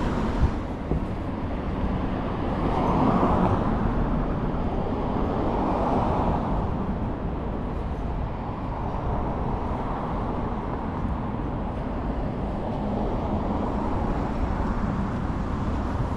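Street traffic: cars passing on the road, their tyre and engine noise swelling and fading, loudest about three and six seconds in, over a steady low rumble.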